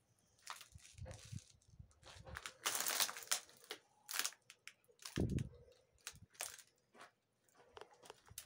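Irregular crunching and scraping of footsteps on rubble and debris, with small clicks and a low thump about five seconds in.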